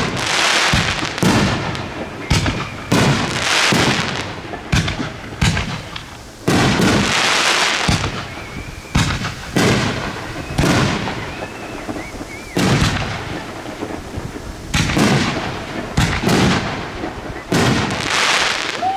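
Aerial fireworks going off one after another. Booms follow each other every second or two, many trailed by crackling, with a few faint whistles in between.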